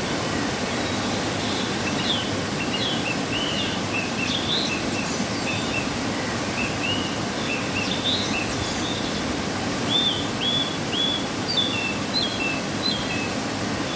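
A waterfall after rain, its water falling with a steady, even rush, and many short, high bird chirps over it throughout.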